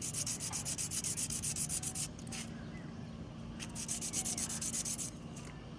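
Sandpaper scraping over a bicycle disc brake pad in quick back-and-forth strokes, about ten a second. There are two bouts with a pause of about a second and a half between them. The light sanding takes off the oil-blackened surface of the contaminated pad.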